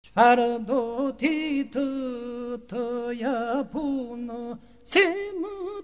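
Albanian Lab iso-polyphonic song sung a cappella: a lead voice sings short phrases full of pitch turns over a steady held note. About five seconds in, a higher voice cuts in with a falling cry.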